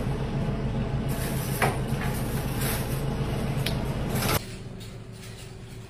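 Steady low mechanical hum of kitchen machinery, with a few short scrapes of a knife on a plastic cutting board while mackerel is filleted. The hum cuts off suddenly about four seconds in.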